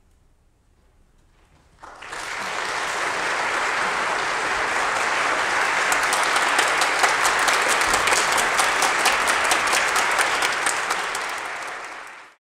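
Audience applause. It starts suddenly out of near silence about two seconds in, then runs on as steady clapping with individual claps standing out, and cuts off abruptly near the end.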